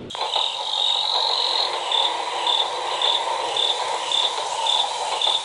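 Night insect chorus: a high steady trill that, after about a second and a half, breaks into regular chirps a little under two a second, over a second, lower steady trill.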